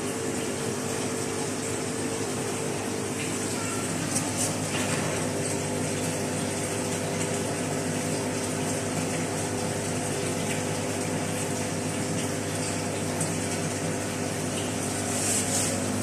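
Aquarium pumps humming steadily under a constant wash of circulating water in saltwater fish tanks.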